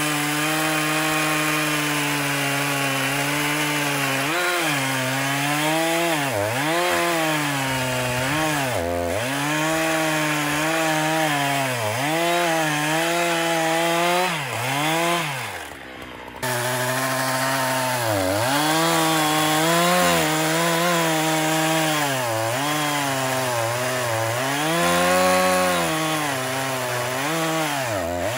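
Husqvarna 365 X-Torq two-stroke chainsaw at high throttle cutting into a block of wood, its pitch sagging and recovering again and again as the chain bites and the engine takes the load. About halfway through the sound briefly falls away and then comes back abruptly.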